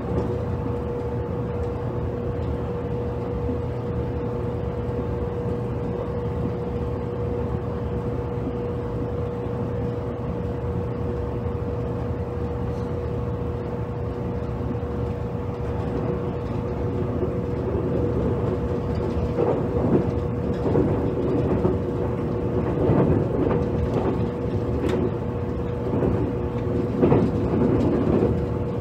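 Onboard running sound of a JR Kyushu 783 series electric express train, heard inside motor car KuMoHa 783-7: wheels rumbling on the track under a steady hum. From about eighteen seconds in it gets louder, with irregular knocks and rattles.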